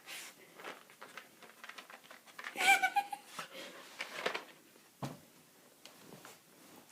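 An Australian terrier going after a small object on the floor: scattered clicks and scuffs, with one brief high-pitched vocal sound about three seconds in.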